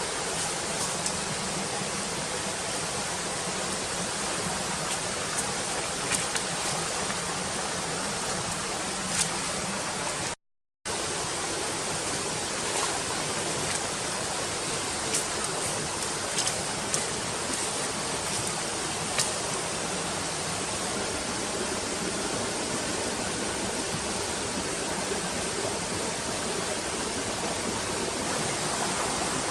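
Steady rushing noise of flowing water, with a few faint clicks and taps now and then. The sound cuts out completely for a moment about ten seconds in.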